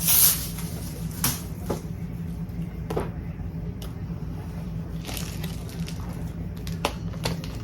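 Scattered light clicks and rustles of plastic bead containers and packaging being handled, over a steady low hum.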